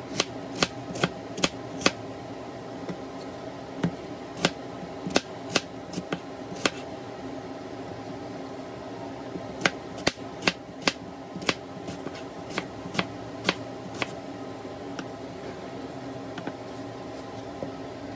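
Knife slicing through an apple and knocking on a wooden cutting board with each cut: sharp knocks about two a second, in runs of four to seven with pauses between, over a steady background hum.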